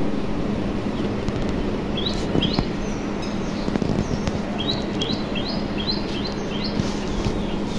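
A small bird chirping in short, sharp, high notes: a pair about two seconds in, then a quick run of six or seven near the end. A steady low hum and background noise run underneath.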